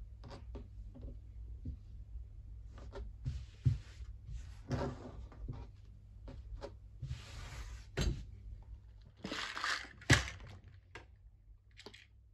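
Felt sheets being handled on a tabletop: soft rustling and sliding of felt with scattered light taps and knocks. About ten seconds in, a sharper knock as a plastic compartment box is set down, with a low steady hum underneath.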